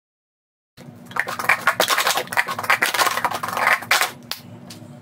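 Red plastic sport-stacking cups clattering rapidly as they are stacked up and down through a cycle stack, sped up in fast motion. A dense run of clicks starts about a second in and stops a little after four seconds, followed by a couple of single clicks.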